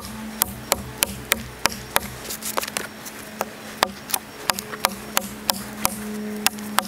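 Large chopping knife striking into a log, a steady run of sharp chops about three a second as the blade bites into the wood.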